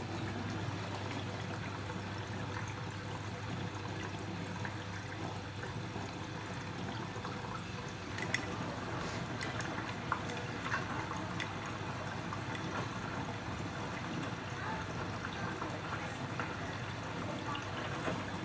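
Bosch WAT28370GB washing machine in its final rinse: the drum turns and water sloshes and splashes around the laundry, over a steady low hum. A few light ticks come through around the middle.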